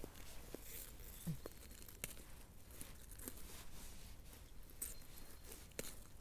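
Faint rustling and crackling of forest plants and leaf litter, with scattered small snaps and ticks at irregular moments.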